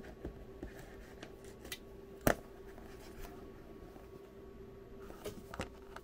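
Small plastic clicks and taps of oscilloscope probes and their cables being handled, with one sharp click a little over two seconds in and two more near the end, over a faint steady hum.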